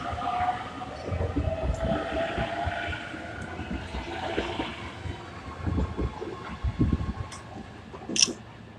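E257 series limited express electric train running past and away, its wheels clacking over rail joints, with a faint rising whine early on. A single sharp click near the end.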